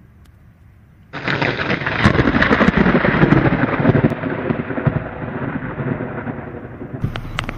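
Thunder: a sudden loud clap about a second in that rolls on as a rumble and slowly fades.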